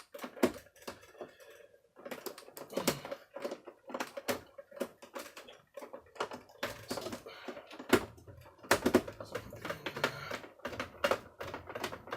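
Irregular clicks, taps and knocks of vacuum cleaner parts and hand tools being handled and fitted together during reassembly.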